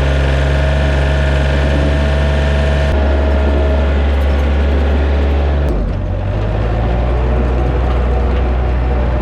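Yanmar C30R's diesel engine running steadily again now that its fuel lift pump has power, its note shifting twice as the engine speed changes slightly.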